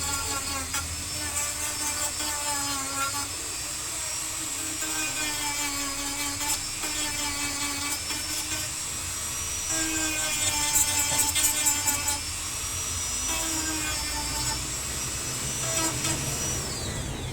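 Dremel rotary tool running at high speed as it grinds the part level, its whine wavering and dipping as the bit is pressed in. Near the end it is switched off and the whine falls away as it spins down.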